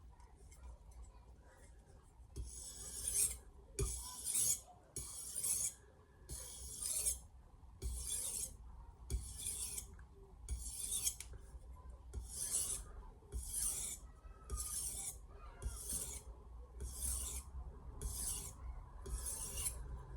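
Steel knife blade stroked across the 1200-grit side of a Sharpal diamond sharpening plate, light deburring passes: a rasping scrape about once a second, some fifteen strokes starting about two seconds in.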